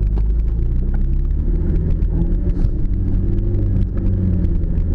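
Off-road vehicle engine running steadily at low revs while the vehicle drives slowly along a rough forest track.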